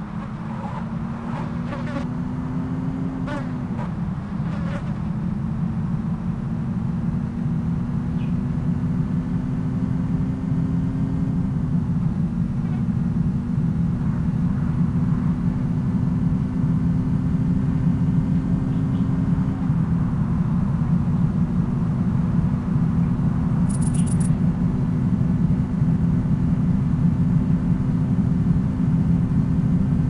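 A vehicle's engine running steadily, a low drone with a humming tone whose pitch dips slightly a few times. There are a few faint clicks in the first seconds and a brief high chirp a little past the middle.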